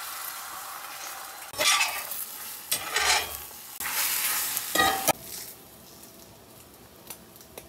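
Beaten eggs sizzling in a hot cast iron skillet, with a spatula scraping and stirring them in about four louder strokes. The sizzling drops away about five seconds in.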